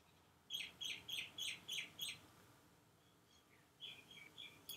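A bird chirping: a run of six short, falling chirps, about three a second, then a softer run of quicker, higher chirps near the end.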